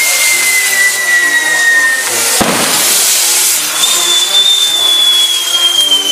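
Castillo fireworks burning with a steady hiss and long whistles that slowly fall in pitch. A sharp bang comes about two and a half seconds in.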